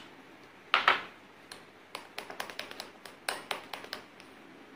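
A metal spoon clinking and scraping against bowls: a sharp tap about a second in, then a run of lighter, irregular clicks as blue colour is stirred into cream.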